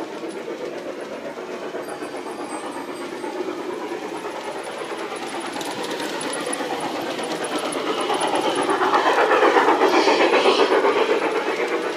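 LGB G-scale model train running on its track with a fast, even clatter of wheels and motor. It grows louder about eight seconds in as the cars pass close, then fades slightly near the end.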